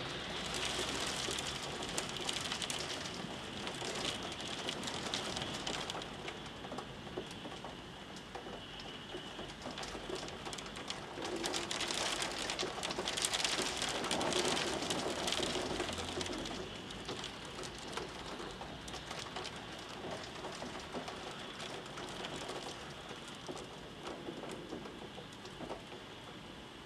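Heavy rain falling on a street, a dense hiss of countless drop impacts and splashes, growing louder about halfway through and then easing off.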